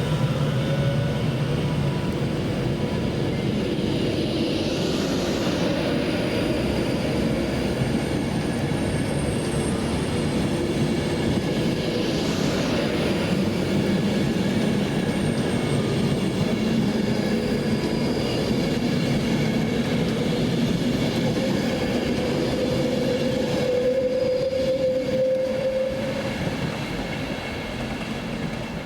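A train running past along the main line: steady rail and wheel noise with thin squealing tones, easing off in the last few seconds.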